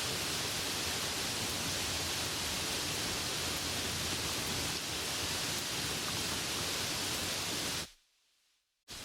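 Steady hiss of falling rain, even and unbroken. Near the end it cuts off abruptly for about a second, then comes back a little quieter.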